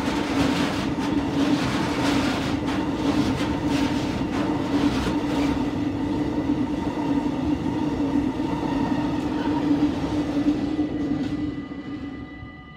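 Loaded container wagons of a freight train rolling past close by: a steady rumble of steel wheels on rail with repeated clatter from the wheelsets. The sound fades away near the end as the last wagon goes by.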